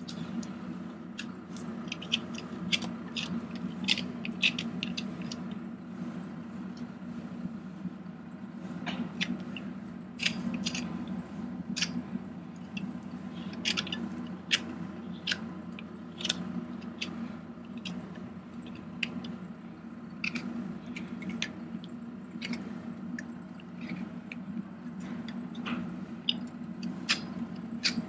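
Hot horseshoe burning onto a horse's hoof: irregular sharp crackles and pops over a steady low hum.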